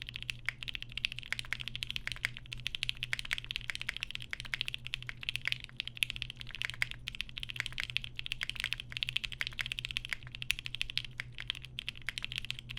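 Fast, continuous typing on a custom mechanical keyboard with Alpaca linear switches, lubed with 205g0 and filmed, under GMK keycaps: a dense stream of keystroke clacks over a steady low hum.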